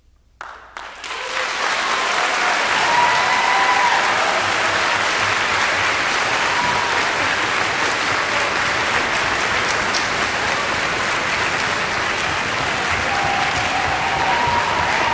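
Concert audience applause breaking out suddenly after silence, swelling within about a second into steady, full clapping, with a few voices calling out over it.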